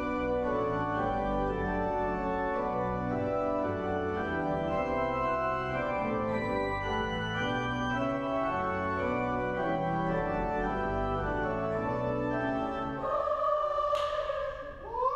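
Pipe organ playing an introduction in sustained, changing chords. About thirteen seconds in, the church choir comes in singing over it.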